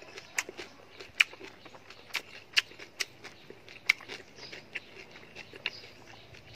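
A string of short, sharp clicks at irregular spacing, roughly two a second.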